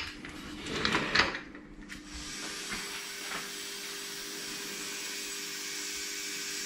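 A few metal parts clinking as they are handled. From about two seconds in, a steady machine hum with a hiss takes over.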